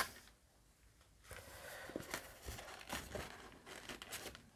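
Faint rustling and light ticks of scrapbook paper and card being handled as a pop-up page is folded shut to check that a glued piece does not catch. A single click comes right at the start, then about a second of near silence before the rustling begins.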